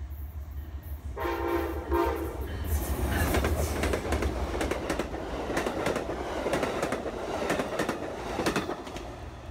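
Amtrak GE P42DC diesel locomotive passing close at speed: its horn sounds a short blast about a second in, then the train goes by with the rapid clatter of wheels over rail joints as the passenger cars pass.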